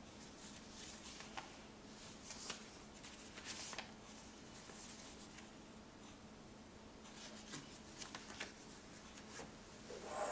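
Soft rustling and crinkling of folded paper road maps being handled and opened, in short scattered bursts. A brief louder knock right at the end.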